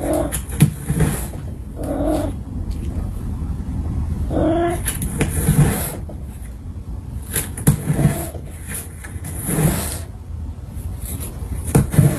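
Domestic cat making repeated short trills and chirps ("prrbbtt", "mrrp"), one every second or two, while rubbing its head against the cardboard edge of a box, giving scratchy brushing sounds with the calls.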